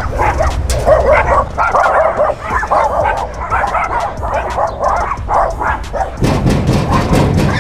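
Several dogs barking in a rapid, overlapping run of barks.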